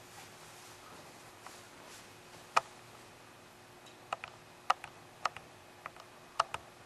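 Sharp, short clicks at irregular intervals, one a little over two seconds in and a cluster of about seven in the second half, over faint room hiss.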